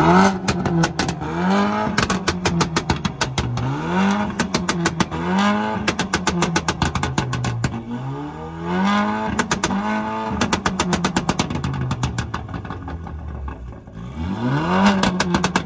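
Car engine revved hard over and over, each rev climbing quickly and then dropping back, with a fast run of crackling pops from the exhaust all through. It eases for a few seconds, then one more sharp rev comes near the end.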